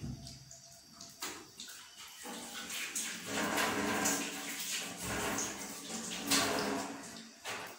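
Water running and splashing, starting about two seconds in and stopping shortly before the end, with a few short knocks around it.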